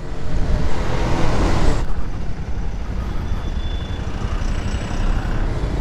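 Bajaj Pulsar 220F's single-cylinder engine running under way, with wind rush on the microphone that drops off about two seconds in as the bike slows for a U-turn.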